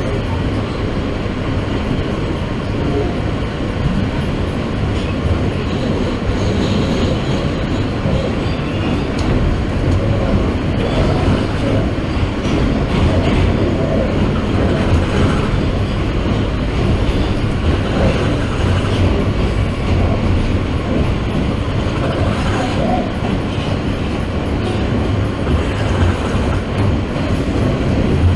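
New York City subway train running between stations, heard from inside the car: steady noise of the wheels on the rails and the motors.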